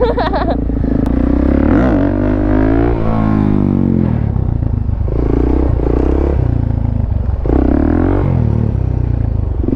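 Dirt bike engine running close by, revving up through the gears: its note climbs about two to four seconds in, then surges and drops back several times.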